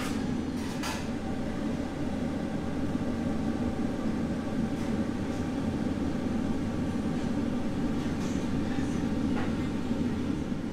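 A steady low mechanical drone, unchanging throughout, with a few faint clicks.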